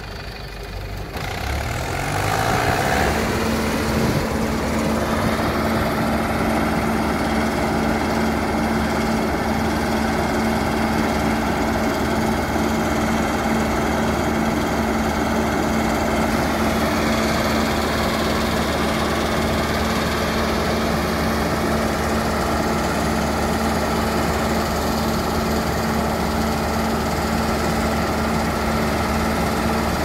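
John Deere W50 combine harvester's engine speeding up over the first few seconds, then running steadily at a high, even pitch as the unloading auger empties the grain tank into a trailer.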